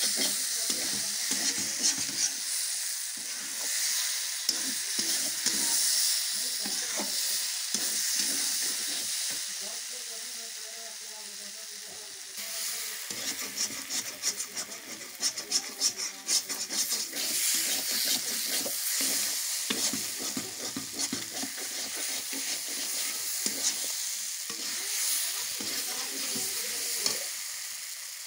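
Vegetable sabzi sizzling in a metal kadhai over a wood fire while it is stirred with a spatula: a steady sizzle with repeated scrapes and clicks of the spatula against the pan, coming thicker from about halfway through.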